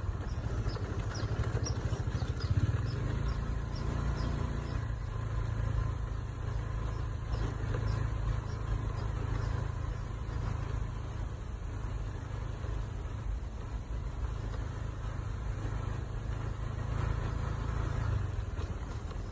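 An engine running steadily with a low hum, which drops away near the end.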